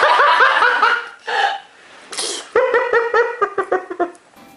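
High-pitched laughter in two long runs of quick, even pulses, one at the start and one from about two and a half seconds in, with a short breathy burst between them.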